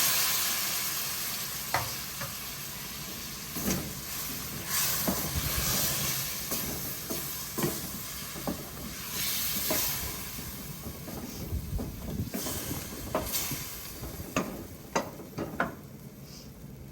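Potatoes frying in burned curry in a pot: a sizzle, loudest at the start and slowly fading, while a spoon stirs and knocks against the pot several times.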